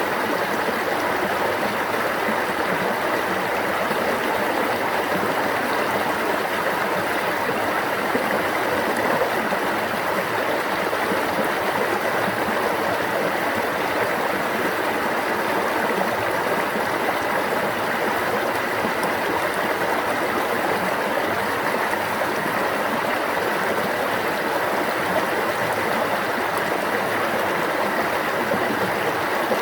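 Water running over rocks in a stream, a steady babbling and gurgling rush.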